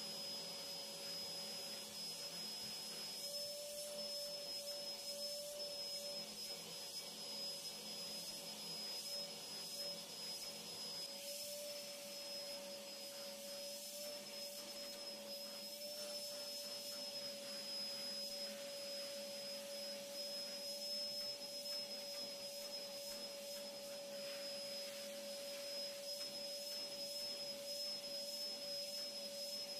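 Vacuum cleaner running steadily, its motor giving a constant whine over a steady rush of air.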